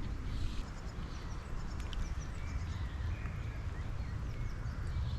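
Small birds singing and chirping, with short rising and falling notes scattered through, over a steady low rumble.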